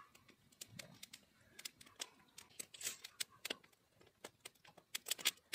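Faint, irregular clicks and ticks of hands threading marinated chicken leg pieces onto bicycle-spoke skewers over a plastic bowl.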